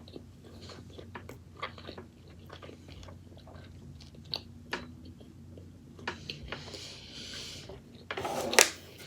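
A person chewing a mouthful of food close to the microphone, with wet mouth clicks and crunches, and a louder, brief sound near the end.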